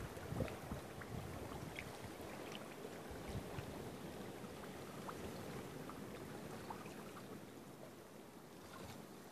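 Gentle lapping and sloshing of shallow water, with a few soft low knocks in the first couple of seconds and scattered faint ticks.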